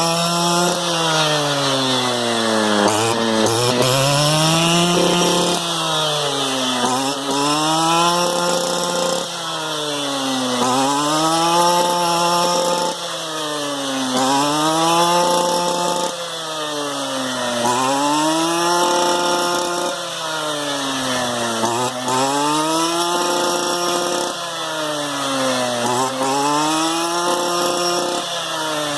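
STIHL FR 230 backpack brushcutter's two-stroke engine running at high revs, its pitch dropping and climbing back again about every two seconds, over and over.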